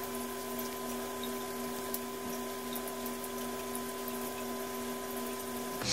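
Laptop cooling fans running steadily under full processor load during a Cinebench render: a steady hum of a few tones over a soft hiss, which cuts off suddenly near the end.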